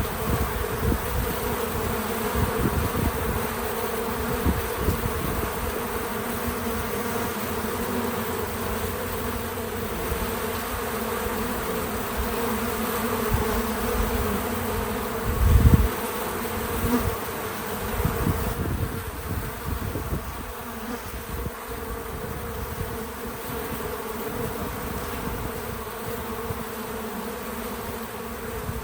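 Many bees buzzing around a feeder in a steady hum, with irregular low rumbles and one brief louder low rumble about halfway through.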